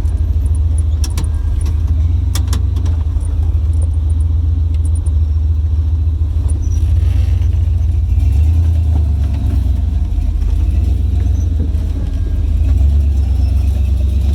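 Lifted Jeep Wrangler's engine running with a steady low rumble while off-roading, with a few sharp clicks and rattles in the first few seconds.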